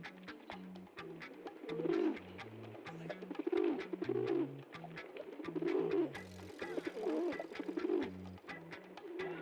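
Pigeon cooing over and over, a rounded low call every second or so, over funk background music with a stepping bass line and a steady hi-hat tick.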